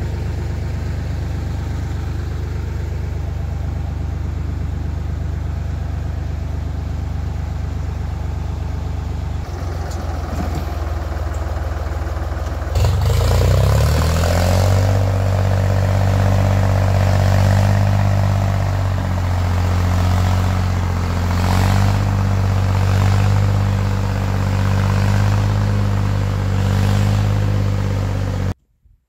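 Farm tractor engine running steadily, then louder and higher-pitched from about thirteen seconds in as it works under load, dragging a box-blade scraper through deep mud. The sound cuts off suddenly near the end.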